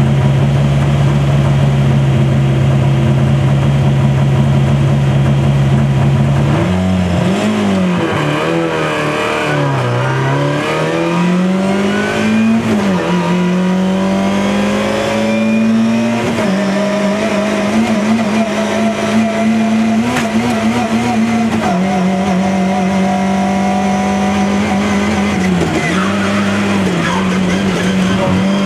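Rally car engine heard from inside the cabin, held at steady raised revs on the start line. About six seconds in the car launches: the pitch jumps, dips and climbs again through the gear changes, then runs hard at high revs with short dips.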